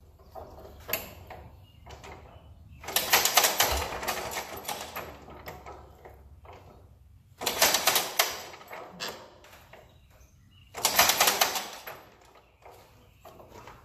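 1938 Farmall F-14's four-cylinder engine being hand-cranked with the starting crank: three bursts of rapid clattering a few seconds apart as the engine is spun over, without it catching and running.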